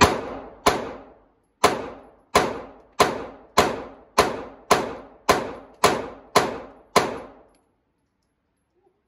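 Glock 26 subcompact 9mm pistol with a Wilson Combat barrel firing twelve shots in steady slow fire. After a longer pause following the second shot, it settles to a little under two shots a second. Each report rings off the walls of an indoor range.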